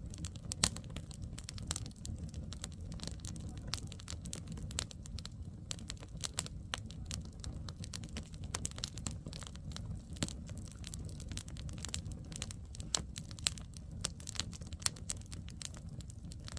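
Wood campfire crackling, with many sharp irregular pops and snaps over a steady low rumble.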